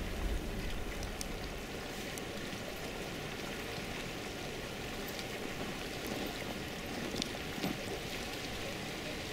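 Steady wash of open lake water moving at the ice edge, with a few faint short clicks and splashes about six to eight seconds in.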